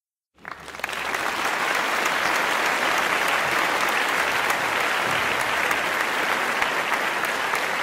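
A crowd applauding, a dense patter of many hands clapping that starts abruptly out of silence about half a second in and then holds steady.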